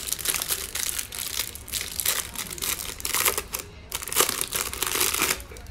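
Clear plastic wrapping crinkling and crackling as it is torn open and pulled off a stack of trading cards. It is loudest about four seconds in and stops just before the end.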